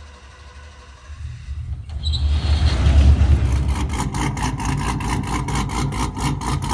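A vehicle engine's deep rumble swells up about a second in and is loudest around three seconds. It then runs on with an even, rapid pulsing.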